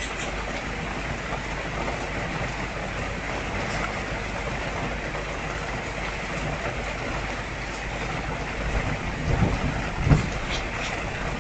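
Steady hiss of rain and water trickling from a small birdbath fountain. A few low thuds come near the end.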